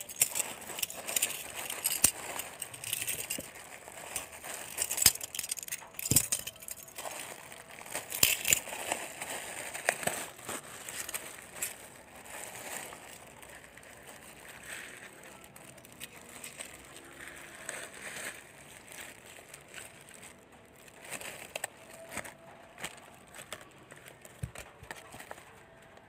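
Clear plastic packaging bag crinkling and rustling, with scattered clicks and taps of hard plastic fan parts being handled. Busiest in the first ten seconds or so, sparser and quieter after that.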